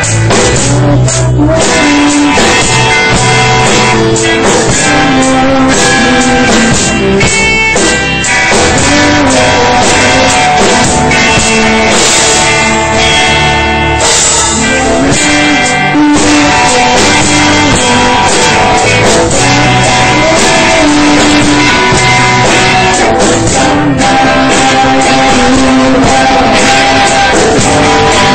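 Rock band playing a song, with electric guitars, bass and a drum kit behind a sung vocal line, loud and continuous.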